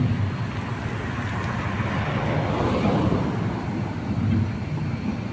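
Road traffic beside the canal: a vehicle passes close by, its noise swelling up and fading away through the middle, over a steady background of traffic.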